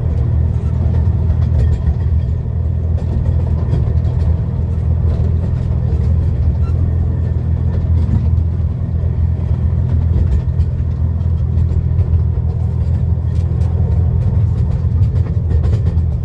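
Miniature railway train running at a slow trundle, heard from inside an enclosed passenger carriage: a steady low rumble.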